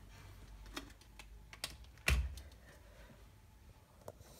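Light clicks and taps, a handful spread out, with one louder knock and a low thud about two seconds in: LED tester probes and leads being handled against the LED strips and metal back panel of an opened LED TV.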